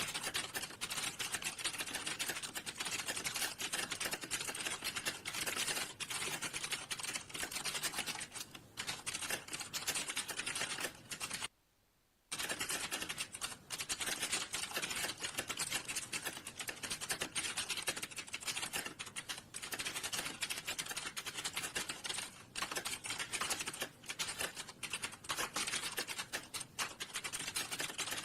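Computer keyboard typing fast and without letup: a dense run of keystrokes, with one pause of under a second about eleven and a half seconds in.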